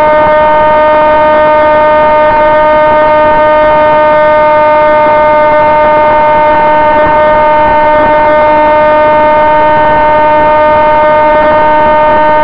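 Electric pusher motor and propeller of a Sonic Modell AR Wing FPV racing wing, whining at one steady high pitch with the throttle held, heard close up through the onboard camera.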